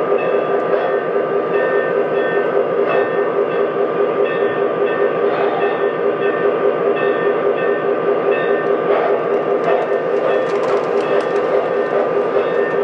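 Lionel model train running on its track: a steady motor hum with fast, even pulsing and wheel clatter, with a few sharp clicks in the last few seconds as the cars roll over the track.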